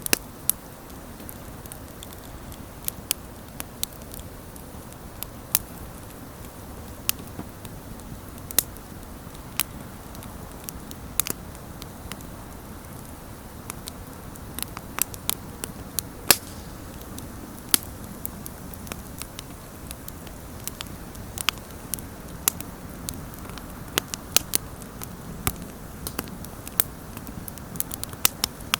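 Wood campfire burning: a steady low rush of flames with irregular sharp crackles and pops of burning wood, a few of them louder.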